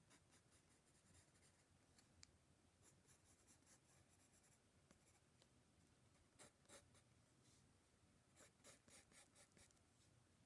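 Faint scratching of a graphite sketching pencil on sketch-pad paper as shading strokes are laid in: quick short strokes throughout, with busier, louder runs about six and a half seconds in and again from about eight and a half to nine and a half seconds in.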